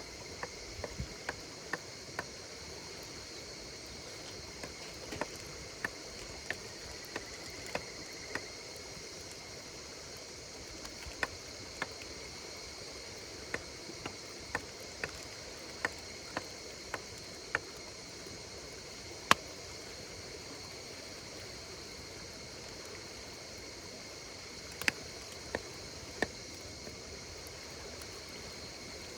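Wood campfire crackling, with irregular sharp pops scattered throughout, the loudest about two-thirds of the way through. Behind it runs a steady high chirring of insects.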